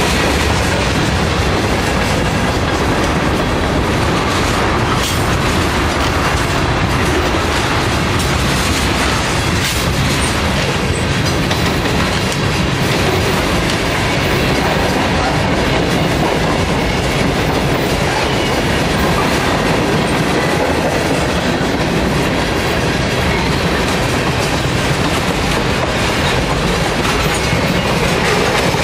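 Freight train of hopper cars and tank cars rolling past close by: a steady, loud rumble of steel wheels on the rails.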